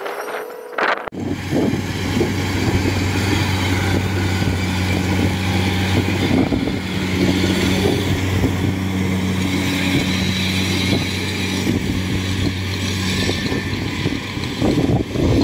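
Kubota DC-70 Plus combine harvester running as it cuts and threshes rice: a steady diesel engine hum under the rushing noise of the threshing and the straw thrown out the back, starting about a second in.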